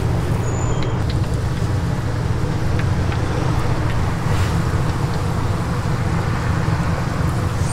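Oil sizzling in a deep fryer around battered pieces, over a steady low rumble.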